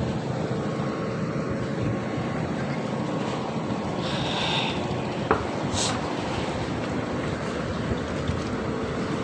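Steady outdoor background of wind and lapping water with a faint, steady motor hum, like a boat engine running in the harbour. A single sharp click comes a little past five seconds in.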